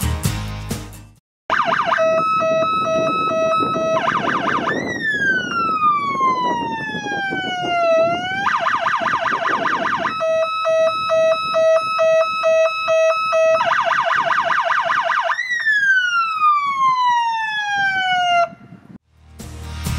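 Electronic siren on a Star fire engine, cycling through its tones: a rapid yelp, a pulsed steady tone and two long falling wails. It starts about a second and a half in and cuts off near the end.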